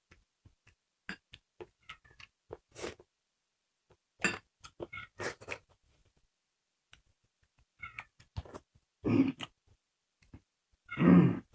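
Scattered small clicks and mouth sounds of people eating a meal, with a couple of brief, pitched cries near the end.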